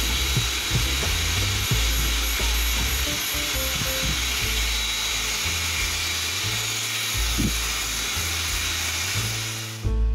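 Steady rushing air of a dog-grooming blower, with a faint high whine in it. It stops abruptly near the end. Background music with a bass line plays under it.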